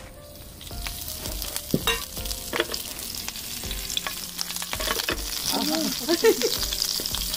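Curry leaves sizzling and spattering in hot coconut oil in a pan, the sizzle building over several seconds, with a few sharp clicks of a utensil against the pan.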